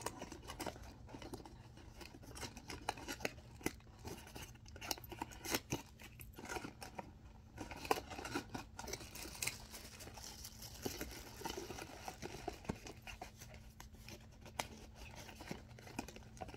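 Clear plastic wrapping crinkling and rustling as a plastic travel plug adapter is unwrapped and turned in the hands, with scattered small clicks and taps throughout.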